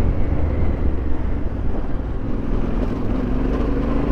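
Yamaha Ténéré 700's 689 cc parallel-twin engine running steadily under way, its note rising a little near the end.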